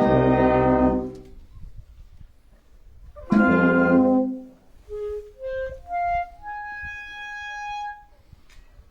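Brass-and-reed wind band playing. A full chord fades about a second in, a second short chord sounds a little later, and then a single instrument plays a short rising phrase ending on a held note.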